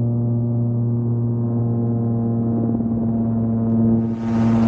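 Rotax-powered gyroplane's engine and pusher propeller droning steadily at an even pitch. About four seconds in, a loud rush of wind noise joins it as the gyroplane rolls inverted.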